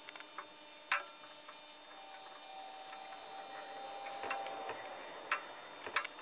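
A rag wiping paste wax over a jointer's metal tables, a faint rubbing, with a few sharp clicks and taps; the loudest click comes about a second in.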